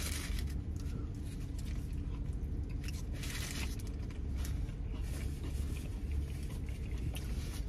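A man biting into and chewing a large carne asada burrito, with crinkling of its paper wrapper and napkin, in short bursts over a steady low hum inside a car.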